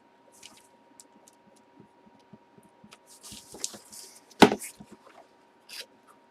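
Trading cards and their packaging being handled on a tabletop: scattered soft rustles and small clicks, with one sharp knock a little past four seconds in.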